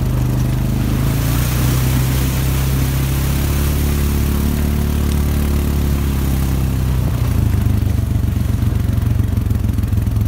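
Quad ATV engine running steadily as it rides a gravel trail, its pitch rising and easing off slightly midway. A hissing rush sits over the engine from about one to six seconds in.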